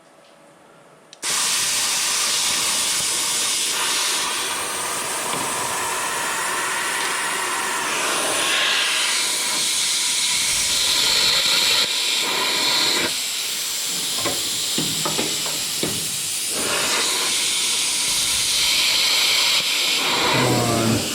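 Loud continuous hissing from a cutting tool working on the car's old front suspension metal, starting abruptly about a second in.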